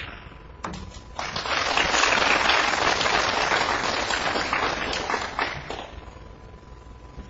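Snooker balls clicking, a sharp click and a second one about half a second later, then an arena audience applauding for about four and a half seconds, greeting a century break.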